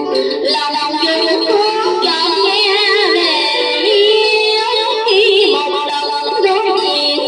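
Music: a melodic passage without words, its notes wavering with vibrato.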